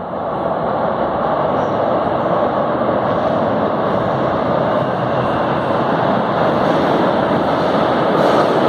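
São Paulo Metro train running through the tunnel into the station: a steady rumble of wheels on rail that grows a little louder near the end as the train approaches.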